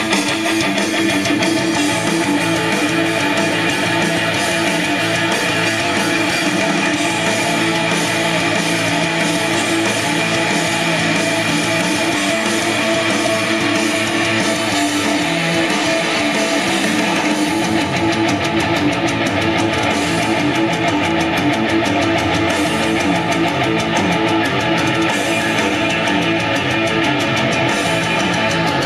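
Guitar music played back from a cassette tape on an MCS 683-3595 dual stereo cassette deck, at a steady level. A deeper bass part comes in a little past halfway.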